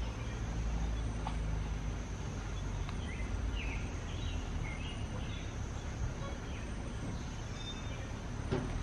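Outdoor background: birds chirping a few times over a steady, high insect drone and a low rumble.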